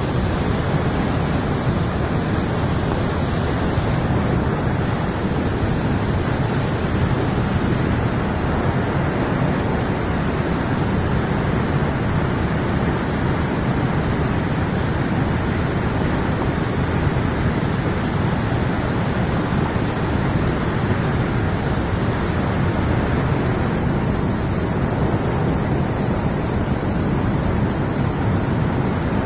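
Floodwater at a waterfall rushing steadily and loudly, a constant low-heavy noise with no breaks.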